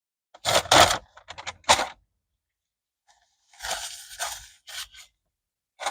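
Burger wrapper paper being crinkled and handled in several short bursts of rustling and scraping.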